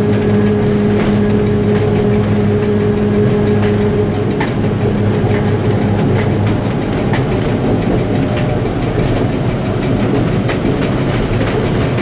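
M62-class diesel locomotive running under way, heard inside its cab: a loud, steady engine rumble whose pitched hum fades out about a third of the way in, with scattered sharp clicks from the wheels on the track.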